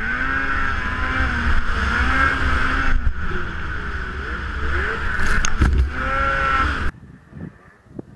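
Snowmobile engine running hard through deep powder, heard close from the rider, its pitch rising and falling with the throttle. About seven seconds in it cuts off abruptly, leaving only a faint, distant engine hum.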